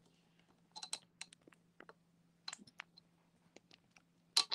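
Scattered light clicks and taps from a camera mount being handled while the shot is reframed, with a tighter, louder cluster of clicks near the end. A faint steady low hum runs underneath.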